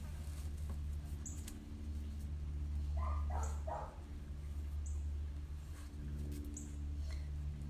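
A dog whimpers in a brief high, squeaky whine about three seconds in, over a steady low hum.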